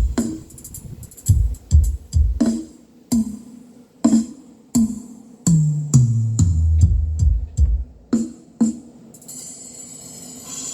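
Electronic dance music played loud through a ground-stacked Lavoce speaker system for a sound check. Heavy kick-drum thumps come about twice a second, then a bass line steps down in pitch midway. The low end thins out near the end.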